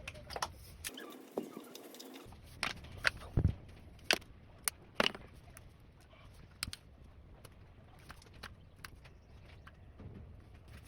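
Irregular sharp clicks and taps of hand work on small parts, over a low steady hum; a cluster of louder knocks comes around three to five seconds in.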